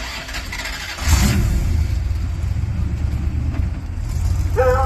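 1969 Dodge A108 van's engine running with a low, steady rumble that comes in loud about a second in, after a brief hiss.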